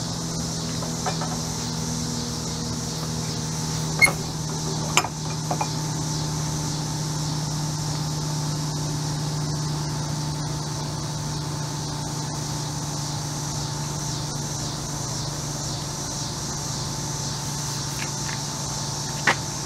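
Steady low mechanical hum with a high hiss. Over it come sharp metallic clinks about four and five seconds in, as the steel bench vise is opened and the cast bronze piece is lifted out, and one more click near the end.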